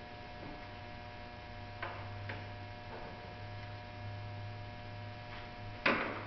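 Steady low electrical hum, with a few faint clicks as a plastic trim clip on a car's wheel-arch trim is pried at by hand, and a louder sudden clatter near the end.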